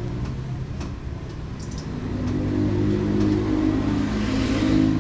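A motor vehicle's engine running close by, getting louder from about two seconds in and loudest near the end, as a vehicle approaching or passing.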